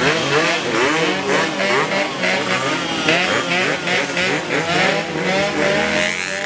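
Yamaha RX-King 135 cc two-stroke motorcycle engines revved hard in rapid throttle blips ('blayer'), the pitch rising and falling over and over, with more than one bike revving at once.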